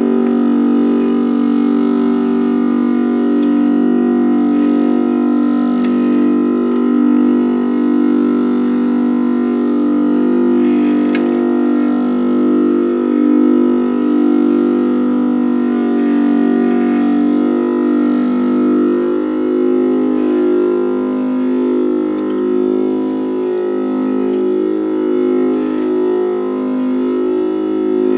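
Background music: sustained, organ-like synthesizer tones whose notes shift every second or so.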